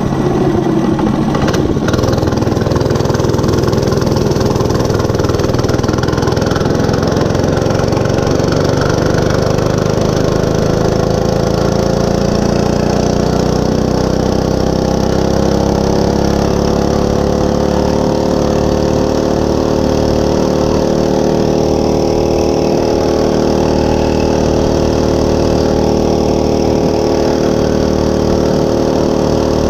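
Monster Moto 105 mini bike's small single-cylinder four-stroke engine running steadily. Its pitch climbs slowly for about ten seconds, then holds level as the bike stays at speed.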